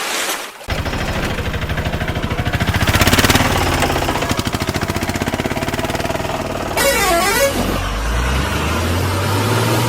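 Engine running with a steady, evenly pulsing chug, loudest about three seconds in. A warbling horn sounds briefly about seven seconds in.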